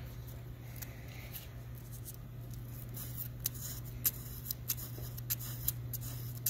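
Ultra-fine sandpaper rubbed by hand over the die of a delidded Xeon CPU, scraping off leftover solder: a run of short dry scratches that comes faster and denser after a couple of seconds, over a steady low hum.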